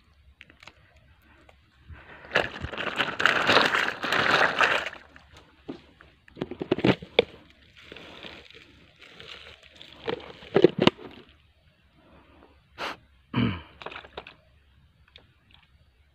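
Close handling noise while a freshly caught climbing perch is unhooked: a rustling scrape lasting a few seconds, then a few scattered sharp clicks and cracks.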